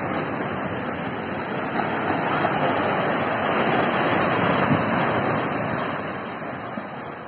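Sea waves breaking and washing up on a beach: a steady rush of surf that swells a couple of seconds in and dies away near the end.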